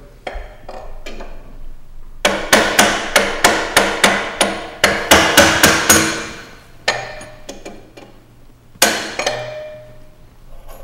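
Hammer striking a steel drift against a motorcycle rear shock's preload lock ring: a rapid run of sharp metallic taps, about four a second for some four seconds, then a few lighter taps and one last harder strike near the end that rings briefly. The top lock ring is being knocked loose from the lower ring before the preload is adjusted.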